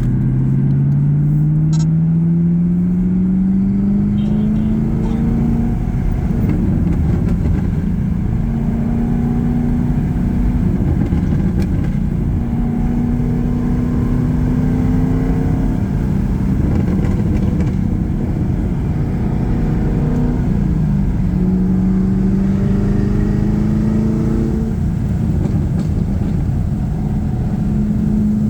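6th-gen Camaro SS 1LE's 6.2 L V8 running through a PLM axle-back exhaust with the secondary catalytic converters deleted. The exhaust note rises in pitch over the first several seconds as the revs climb, then holds steady with a brief dip about three-quarters of the way through.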